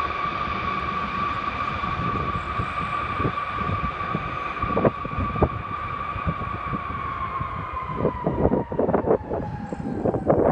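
C-5 Galaxy's four turbofan engines whining with a steady high tone over a deep rumble as the aircraft comes in low for a touch-and-go. The whine sinks slightly in pitch in the last few seconds as it moves away down the runway, and wind buffets the microphone near the end.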